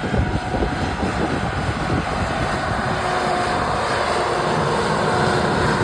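A vehicle running steadily, with a loud, even rumble and choppy low buffeting in the first second or so.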